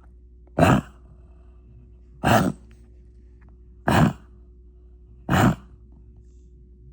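Harsh wheezing coughs: four short ones, evenly spaced about a second and a half apart.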